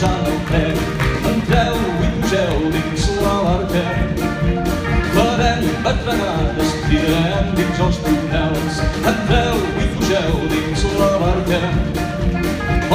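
A live band playing a song, with voices singing over a steady drum beat.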